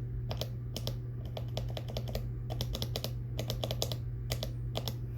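Typing on a mechanical keyboard with Prime Keyboards T1 tactile switches that are lubed with Tribosys 3203 and switch-filmed: bursts of quick keystroke clicks.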